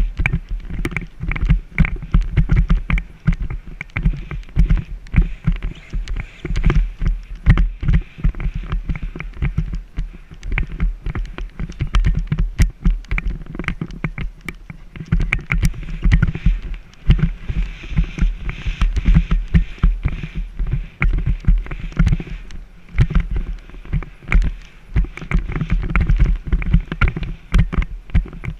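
Horse cantering on grass, picked up by a helmet-mounted camera: a quick, even rhythm of dull hoofbeats with rider and tack moving in time.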